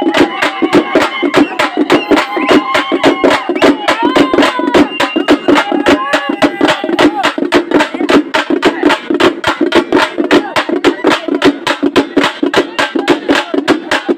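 Loud, fast, steady drumming at about four to five sharp strokes a second, with voices calling and chanting over it, mostly in the first half.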